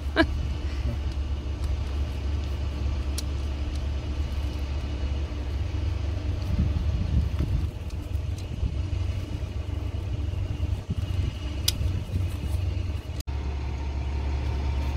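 Steady low rumble of a truck engine idling in the background, with a couple of faint sharp clicks of a screwdriver working a hose clamp.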